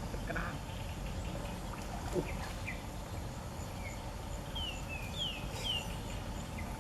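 Outdoor ambience: a bird calling in short, quick, falling whistled notes, a run of them about four to six seconds in, over a steady low rumble.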